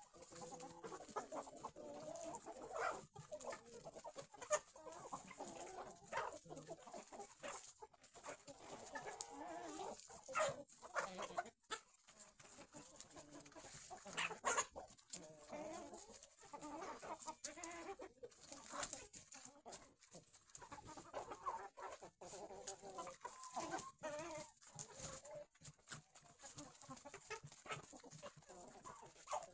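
A flock of domestic hens clucking, many birds calling over one another with hardly a break.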